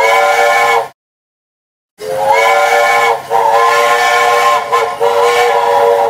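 Steam whistle blowing a chord of several notes at once, with steam hiss: a short blast that stops about a second in, then after a pause three long blasts run almost together.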